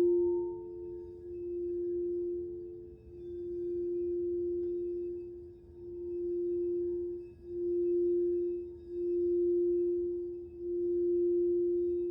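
Crystal singing bowl sounding one steady, pure tone that swells and eases about every one and a half seconds, while a second, higher tone dies away in the first three seconds.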